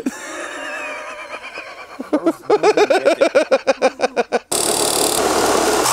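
A loud run of short pitched pulses, about five a second, which cuts off abruptly about four and a half seconds in. A Sawzall reciprocating saw then starts cutting through a motorcycle wheel with a steady rasp.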